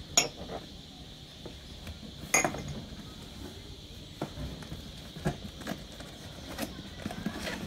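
Corelle ceramic mugs knocking and clinking against each other and the table as they are picked up and handled. Two sharper knocks come, one right at the start and one about two and a half seconds in, followed by several lighter taps.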